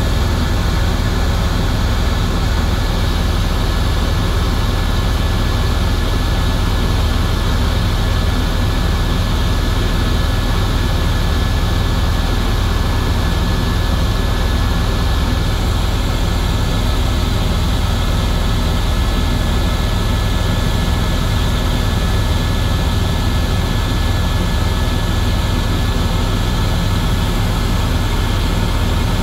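Helicopter in flight, heard from inside the cabin: a loud, steady deep drone of turbine engine and rotor, with a thin high whine running through it.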